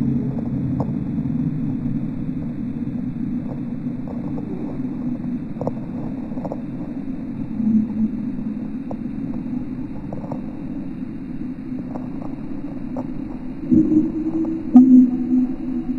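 Low, muffled droning rumble with faint scattered crackling clicks, swelling louder a couple of seconds before the end.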